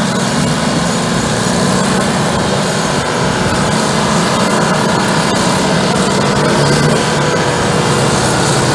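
Euclid TC-12 crawler dozer's twin GM 6-71 two-stroke diesel engines running steadily under load as the machine pushes a pile of dirt with its blade.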